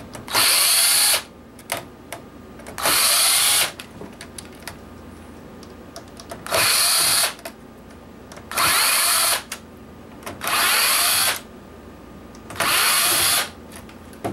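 Cordless drill-driver backing out small screws from a PlayStation 3's internal metal shielding, in six short runs of about a second each, with faint clicks of handling between the runs.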